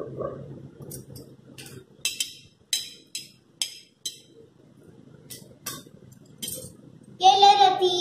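Kitchen utensils (griddle, metal tongs, rolling pins) being handled and set down, with about eight sharp metallic clinks spaced irregularly over a few seconds. Near the end a child's high voice comes in loudly with long held notes.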